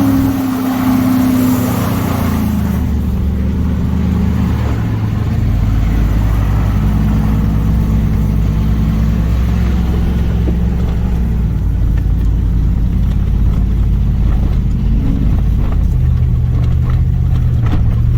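Pickup truck engine running under load while driving. A loud rushing noise fills the first couple of seconds, then the engine note drops and settles into a fairly steady drone.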